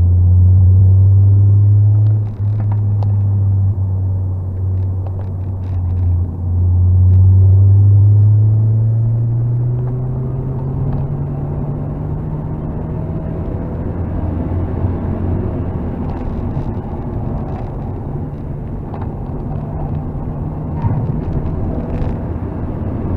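Mazda MX-5 NC's 2.0-litre four-cylinder engine with an aftermarket exhaust, heard from inside the cabin while driven hard on track. It is loud, with two brief dips in level in the first seven seconds, then its pitch rises slowly for several seconds and holds, over tyre and wind noise.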